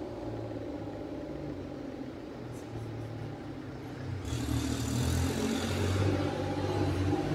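Low, steady engine rumble from a motor vehicle that grows louder about four seconds in, joined by a rising hiss.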